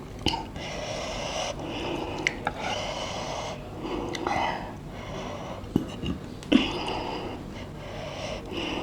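A person breathing hard and sniffling in repeated heavy breaths, the reaction to the heat of very spicy noodles. A few sharp clicks sound in between.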